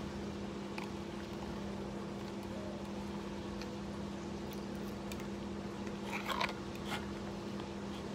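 A plastic fork stirring and scraping in a plastic bowl of noodles, with a short cluster of clicks and scrapes about six seconds in, over a steady low hum.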